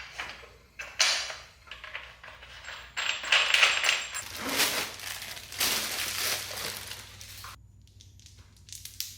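A shop rag wiping grease off a motorcycle's rear axle: a series of rubbing strokes, each about half a second to a second long, with a few light clicks of metal parts being handled.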